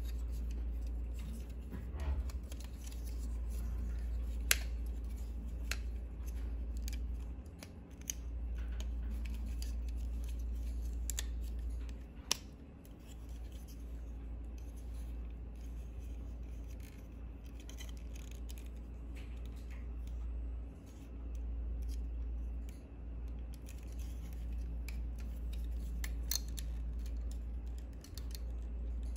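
Plastic Megatron transforming action figure being handled and reconfigured: scattered sharp clicks and snaps of its joints and parts, with rubbing and scraping of plastic in between. A steady low hum runs underneath, dropping out briefly a few times.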